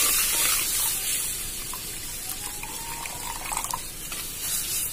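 Coconut milk pouring in a thin stream into a hot kadai of fried spice paste; the hiss of sizzling oil is loud at first and dies down over about two seconds as the liquid covers the oil, leaving the quieter trickle of the pour.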